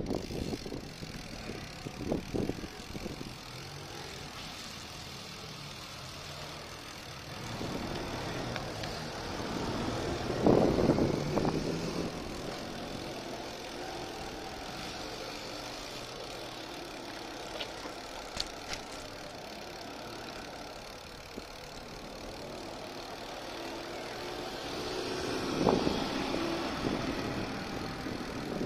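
Car engines on a street, passing close by twice: the sound swells about ten seconds in and again near the end, over a steady low hum.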